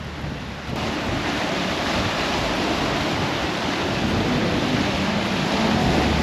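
Strong wind blowing hard across the microphone, a steady rushing noise that gets louder about a second in.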